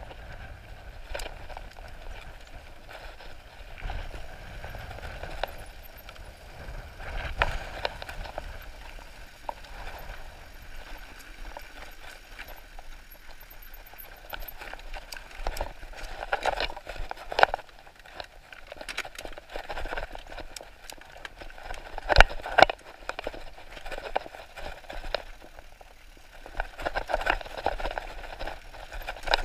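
Bicycle ridden over a rough dirt trail: a steady rolling rumble with irregular rattles and sharp knocks, the loudest knocks coming in the second half.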